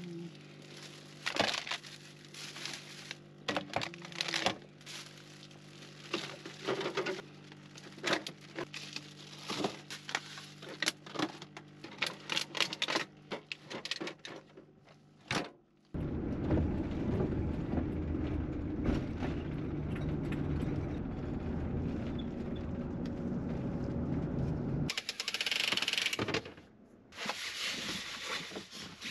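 Plastic shopping bag rustling and cans and cartons knocking and clicking as groceries are packed into a small fridge. About halfway through, a steady low rumble sets in for about nine seconds, then gives way to a few loud rushing swishes near the end.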